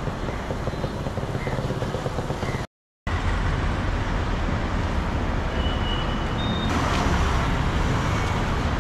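Steady low rumble of road traffic. It cuts out completely for a moment just before the three-second mark, then carries on unchanged.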